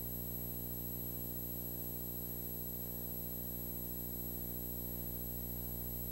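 Steady electrical hum with a faint high-pitched whine and light hiss, unchanging throughout.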